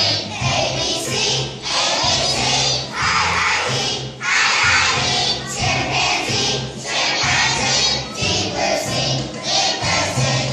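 A choir of young children singing together over a musical accompaniment with steady low bass notes, the singing coming in phrases about a second long.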